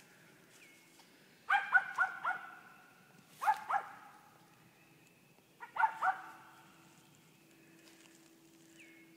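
Carolina cur barking in short clusters: four quick barks, then two, then three, about two seconds apart.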